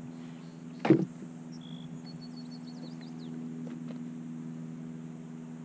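A steady low hum, with a single sharp knock about a second in and a few faint high chirps after it.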